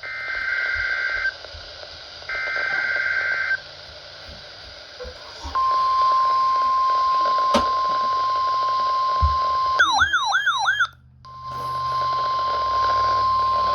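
NOAA Weather Radio Emergency Alert System signal ahead of a tornado warning. Two short bursts of the SAME digital header's screechy two-tone data are followed by the steady 1050 Hz warning alarm tone. About ten seconds in the tone is briefly cut by a fast warbling, sweeping tone and a moment of dropout, then it resumes.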